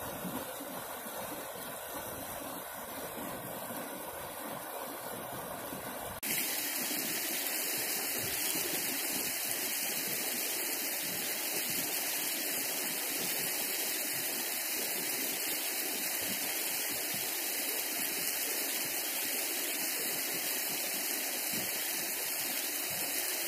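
Creek water rushing and tumbling over rocks, a steady, even rush. About six seconds in it cuts abruptly to a louder, brighter rush of water.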